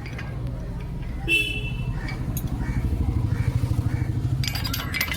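A small engine, like a motorcycle's, runs steadily with a low pulsing beat and swells for a couple of seconds in the middle. There is a short high tone about a second in, and a few sharp metallic clicks near the end.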